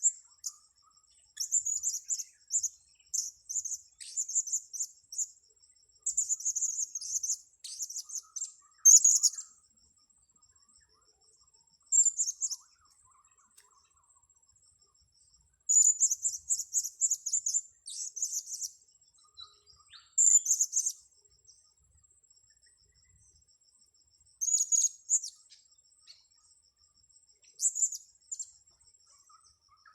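Blue-crowned hanging parrots (serindit) calling: bursts of shrill, high chirps, each burst about a second long, coming again and again, over a steady high cricket trill.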